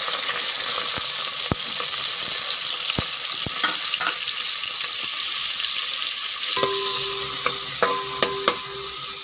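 Sliced onions sizzling in hot oil in an aluminium pot, being fried until reddish-brown, with a spoon clicking against the pot now and then as they are stirred. The sizzle eases a little about two-thirds in.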